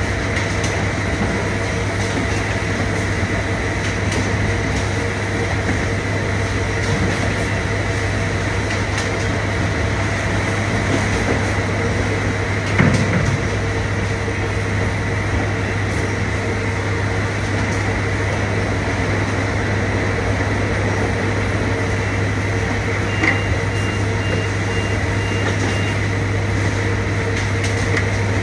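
Loud, steady din of warehouse conveyor and packing machinery, with a constant low hum and a couple of steady whining tones. A single knock comes about 13 seconds in. Near the end there is a sharp click, followed by a faint high tone that lasts about three seconds.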